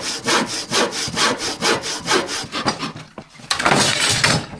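Hand saw cutting through wood in quick, even strokes, about two a second, then a short pause and one long stroke near the end.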